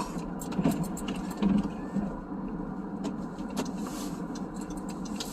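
Steady hum inside a car with the engine running, with a few short clicks and knocks scattered through it.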